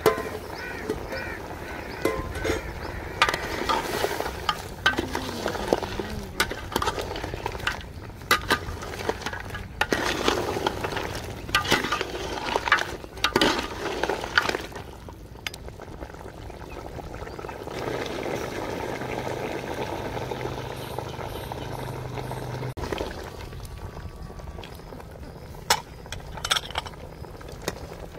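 Metal ladle stirring a boiling stew in an aluminium cooking pot, with repeated clinks and knocks of metal on metal over the bubbling of the stew; a low steady hum comes in during the second half.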